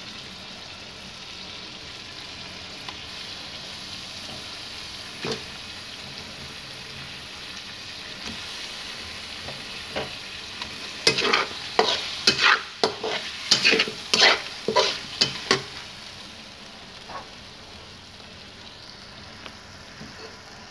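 Chicken and tomato pieces frying in butter in a metal karahi, a steady faint sizzle. About halfway through, a spatula scrapes and knocks against the pan repeatedly for several seconds as the pieces are stirred.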